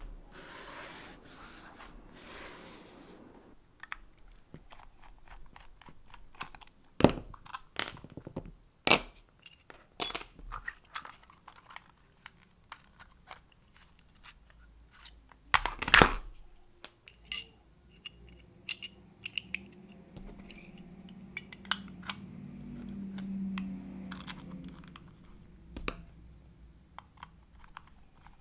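Clicks, taps and small metal clinks from handling a metal Stanley utility knife and its blade dispenser during a blade change, with the loudest click about 16 seconds in. A scraping hiss comes in the first few seconds, and a low hum swells in the last third.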